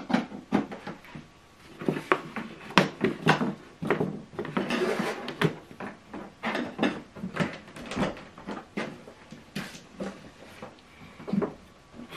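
Irregular clicks, knocks and rubbing from hands handling power cables and pushing plugs into a mains extension reel, with a longer rustle of cable being moved about five seconds in.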